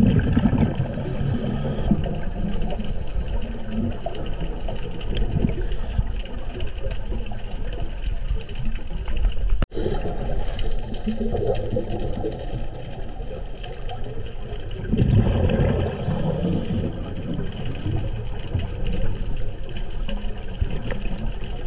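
Underwater sound from a scuba dive: a diver's exhaled regulator bubbles gurgling in swells, loudest right at the start and again about fifteen seconds in, over a steady underwater rush.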